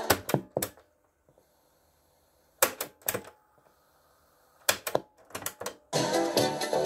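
Mechanical piano-key transport buttons of a Crown SZ311 double-cassette boombox clacking as they are pressed and released, in three quick clusters of clicks. The tape's music cuts off at the start and starts playing again about six seconds in.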